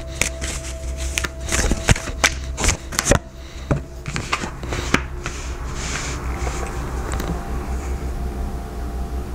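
Tarot cards being shuffled by hand: a quick run of card-edge clicks and slaps over the first five seconds or so, thinning to a few soft touches after that.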